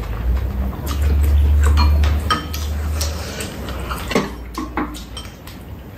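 Spoons and chopsticks clinking and scraping against ceramic bowls and a metal tray during a meal: scattered short clinks, some with a brief ring. A low rumble, the loudest sound, runs through the first half.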